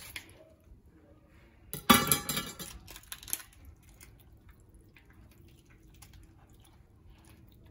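A metal kitchen knife clattering as it is set down on the counter and cutting board about two seconds in, with a smaller knock a second later. Then faint soft ticks as the raw fish is handled.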